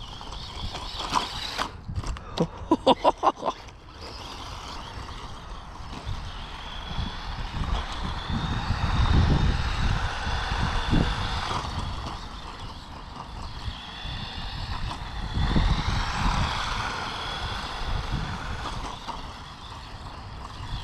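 Small electric RC monster truck (DEERC 9310, 1:18 scale) driving, its motor and gears whining and rising and falling in pitch as it speeds up and slows, over a low rumble. About two seconds in, a quick run of half a dozen sharp clicks.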